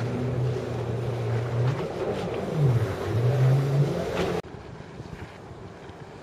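An engine running steadily, its pitch dipping and then rising again about halfway through, over wind buffeting the microphone. About four seconds in the sound cuts off abruptly to fainter wind noise.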